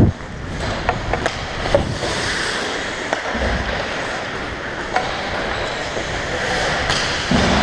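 Hockey skate blades scraping and carving on rink ice as the skater moves, with a few sharp knocks scattered through.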